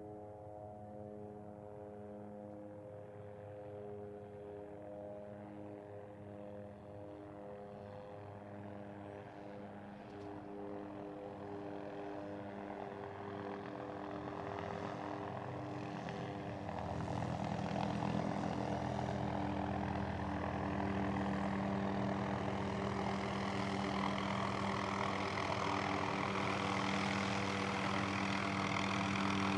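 Bell 505 Jet Ranger X helicopter approaching, its turbine and rotor getting steadily louder as it nears, with a steady whine of several held tones under a growing rush of rotor noise.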